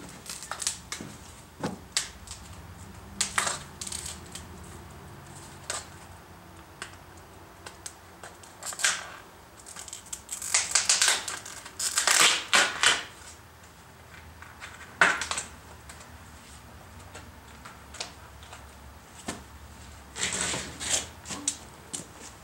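A thread repair kit being opened and its parts handled: irregular clicks, taps and rattles, with longer rustling noises about halfway through and near the end.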